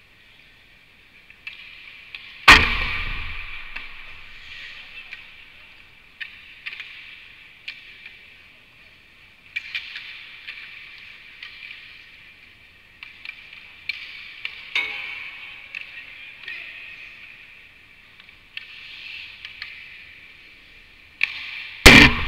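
Ice rink sounds: hockey skates scraping and carving the ice in repeated hissing strokes, with small clicks of sticks and pucks. Two loud bangs of a puck striking the rink boards, one about two and a half seconds in and one near the end, with a softer knock in between.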